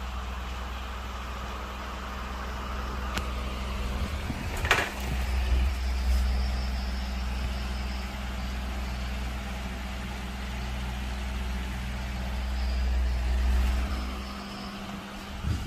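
Cosmos 16-inch wall fan running: a steady motor hum over rushing air, with a low rumble. A sharp click comes about five seconds in, and the low rumble drops away near the end.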